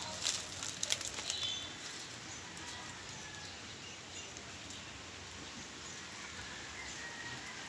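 Outdoor ambience with rustling knocks from the phone brushing against the coconut palm in the first second and a half, and a few faint short bird chirps.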